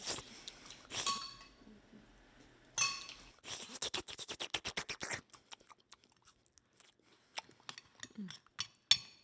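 Someone eating noisily from a bowl: cutlery clinking against it in a quick run of clicks in the middle, then scattered single clinks.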